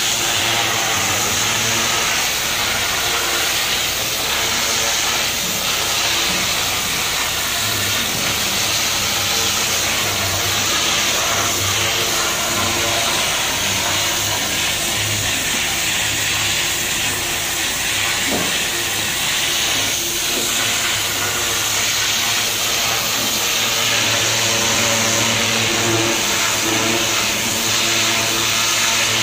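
High-pressure water jet blasting barnacles off a steel ship hull: a loud, steady hiss of the spray with the drone of a running machine underneath.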